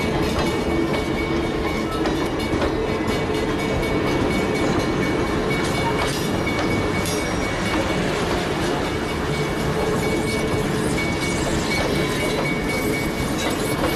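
Grand Canyon Railway stainless-steel passenger cars rolling past, a steady rumble of wheels on rail with thin steady tones over it.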